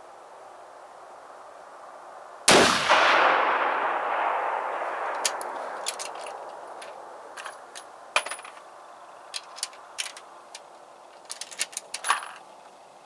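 A single rifle shot about two and a half seconds in, its report rolling away in a long echo over several seconds. Then a scatter of small metallic clicks and clinks as the rifle is handled.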